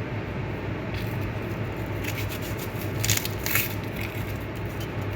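Crackly, scratchy rustling and scraping from handling things during kitchen preparation, in short bursts about two seconds in and again around three seconds in, over a steady low hum.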